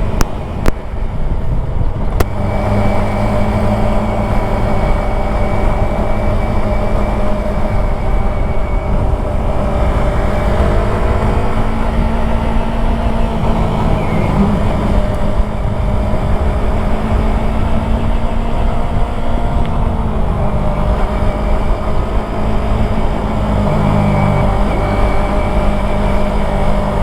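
Yamaha YZF-R3's parallel-twin engine running under way at a fairly steady speed, its pitch rising and dipping slightly now and then. Two sharp clicks sound in the first couple of seconds.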